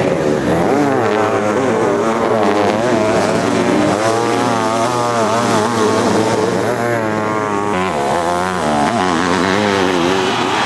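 Sidecar motocross outfits' engines revving hard, the pitch rising and falling again and again as the riders accelerate and back off around the dirt track.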